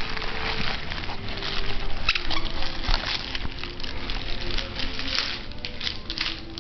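Two small dogs scuffling on carpet as they tug at a stuffed toy: a dense, irregular run of rustling and scratchy clicks.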